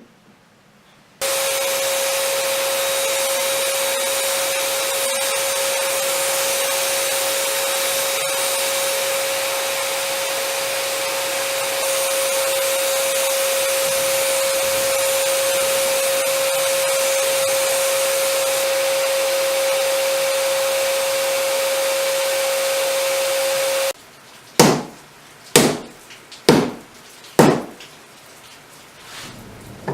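An electric power tool running steadily on wood, a constant hum under a loud hiss, which stops abruptly after about twenty seconds. Five sharp knocks about a second apart follow.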